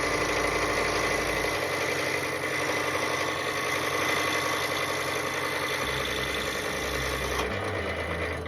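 Scroll saw running steadily, its blade cutting through wood.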